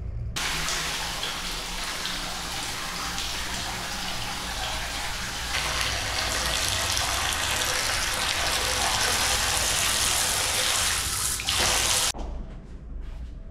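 Water running from a two-handle mixer faucet into a sink, splashing over a hand held under the stream. It comes on suddenly just after the start, runs steadily, and cuts off abruptly about a second and a half before the end.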